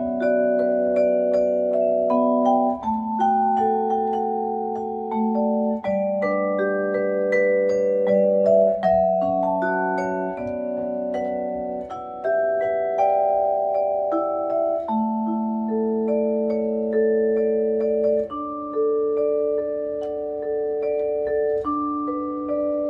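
Korogi vibraphone played with four yarn mallets: a pop-ballad melody over low chords, the notes ringing on and overlapping.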